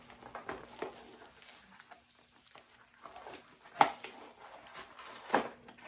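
Packaging being handled and pried open by hand: soft rustling and scraping broken by small clicks, with two sharper snaps, about four seconds in and near the end.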